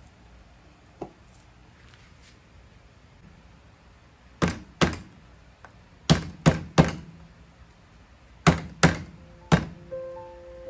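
Metal meat-tenderizer mallet smashing garlic cloves on a cutting board: eight sharp thuds in three quick groups of two, three and three. Music comes in near the end.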